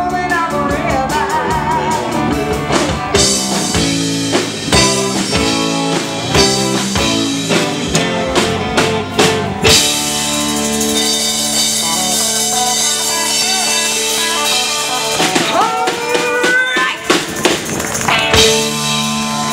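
A live band playing with electric guitars and a drum kit, keeping a steady beat, with singing at times.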